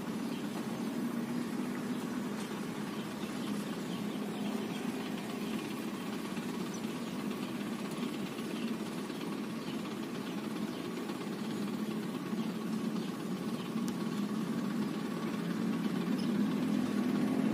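Dump truck's engine running steadily with a low hum while the truck tips its bed up, getting a little louder near the end.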